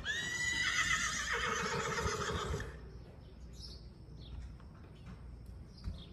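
A horse whinnying: one loud call of about two and a half seconds that starts high and quavering and drops lower toward its end. After it come faint hoofbeats on sand footing.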